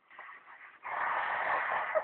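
Snoring: faint noisy breathing, then a longer, louder snoring breath from about a second in.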